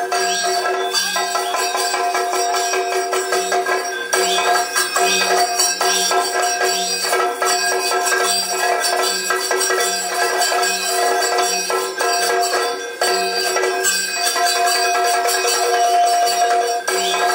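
Yakshagana dance music: a steady drone held under a driving drum rhythm with jingling bells, the jingle typical of the dancer's ankle bells and small hand cymbals.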